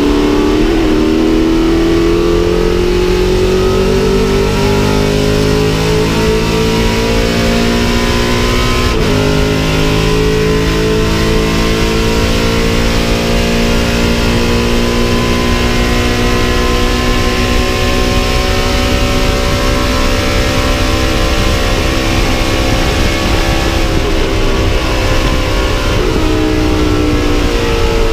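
Race-prepared 1967 Chevrolet Camaro's engine pulling hard at racing speed, heard from inside the cockpit. The pitch climbs, drops sharply with an upshift about nine seconds in, then rises slowly through a long flat-out run and shifts again near the end.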